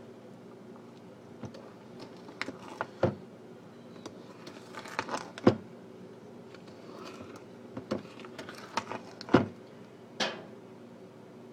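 Irregular knocks, clicks and scrapes of a spoon stirring thick brownie batter in a mixing bowl, the loudest knocks about five and a half and nine and a half seconds in, over a steady low hum.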